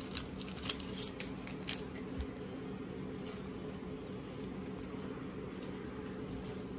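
Hockey trading cards handled by hand: a few soft clicks and rustles in the first two seconds, then only a steady low hum.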